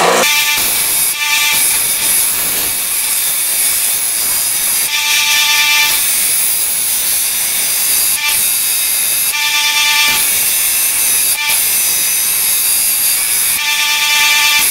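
Central Machinery narrow-belt bench sander running while a steel blank is ground on the belt, a steady harsh hiss of abrasive on steel. A higher whine rises out of it in stretches of about a second, several times.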